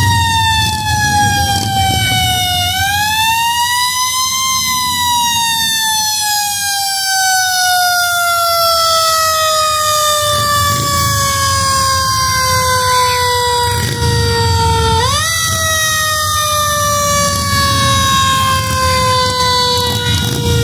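A fire engine's siren, one continuous tone that slowly falls in pitch. It winds up twice, once about three seconds in and again more sharply about fifteen seconds in. Motor vehicle engines rumble underneath.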